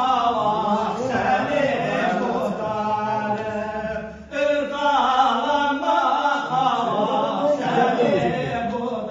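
Men singing in a chanting style in full voice, with a short break about four seconds in.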